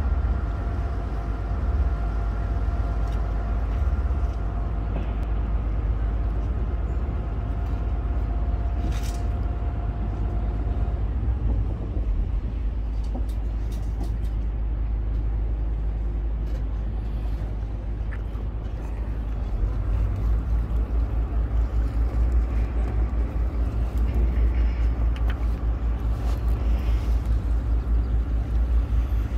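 Steady low engine rumble, with a faint steady whine over it for the first ten seconds or so. From about twenty seconds in, the rumble takes on a fast, even throb.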